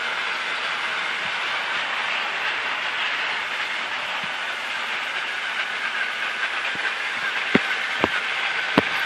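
Motorised Trackmaster toy trains, Thomas and Luke, running on plastic track with a steady motor whir and a faint high whine. Three sharp clicks come near the end.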